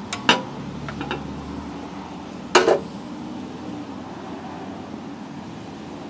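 Sharp metallic clinks of hand tools and small metal engine hardware being handled: two near the start, a couple of fainter ones about a second in, and a louder clatter about two and a half seconds in. Under them runs a steady background hiss.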